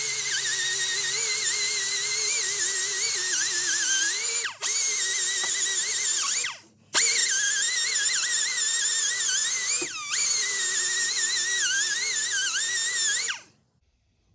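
Scotch-Brite pad spinning against the intake manifold's carburetor mounting surface, making a high, wavering squeal that wanders in pitch. It stops briefly three times, with the pitch sliding as the pad comes off the surface, and cuts off near the end.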